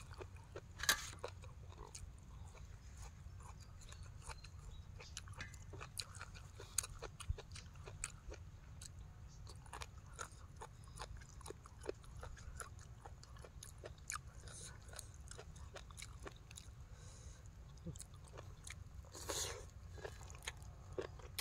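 Close-up chewing and mouth sounds of a person eating spicy papaya salad by hand: faint, scattered small clicks and crunches over a steady low rumble, with one louder sound near the end as noodles go into the mouth.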